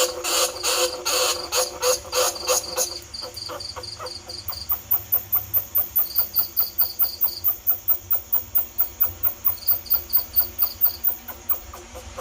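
Recorded squeaking calls of bandicoot rats, played as a rat lure. A fast, even train of short squeaky chirps, about four a second and louder for the first three seconds. It then turns into a quicker run of ticking chirps, about five a second, with groups of short high peeps.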